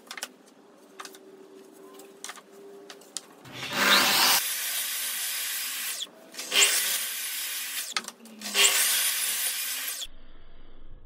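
Makita sliding compound mitre saw starting up with a rising whine and cutting down through a stack of pine boards, in three loud bursts with short dips between them. Before the first cut, the boards are handled against the fence with a few clicks and knocks.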